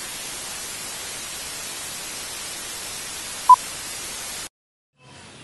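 TV-style static hiss as an intro sound effect, with one short beep about three and a half seconds in; the hiss cuts off suddenly near the end.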